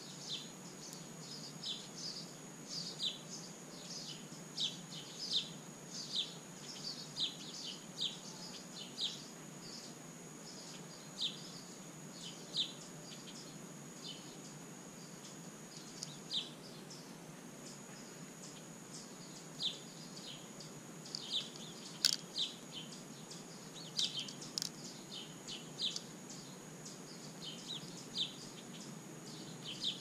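Small birds chirping in short, irregular calls, several a second at times, over a thin steady high tone and low outdoor background noise. A single sharp click about two-thirds through.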